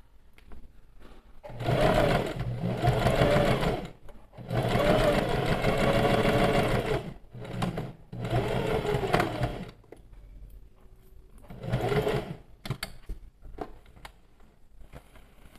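Domestic sewing machine stitching a seam in four runs, the motor pitch rising and falling within each run, with short pauses between. The last run is short, about twelve seconds in, followed by a few light clicks.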